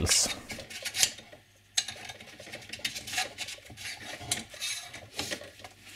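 Aluminium tubes being handled together, a short sleeve of thicker tube fitted over the end of the thin aluminium mast tube: metal rubbing and light clinking in irregular scrapes, with a brief gap of silence about a second and a half in.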